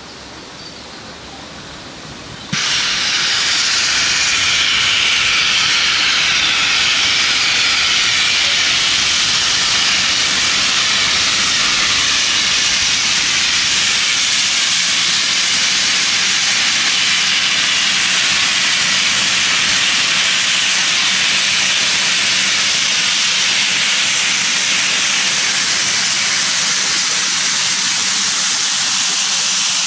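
Narrow-gauge steam locomotive blowing off steam: a loud, steady hiss that starts suddenly about two and a half seconds in, after a quieter start.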